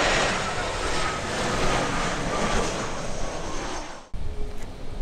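Jet airliner engine noise: a loud, steady rush with a faint whine. It cuts off suddenly about four seconds in and gives way to a quieter low rumble with a faint engine hum.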